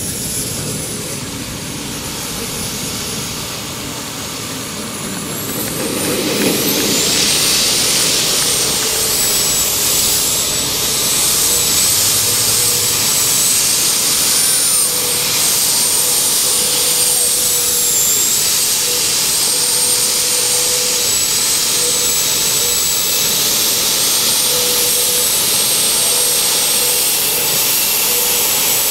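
Radio-controlled model jet's engine running on the ground with a high, steady whine. Its pitch rises and it gets louder about six seconds in, then it holds with a slight waver.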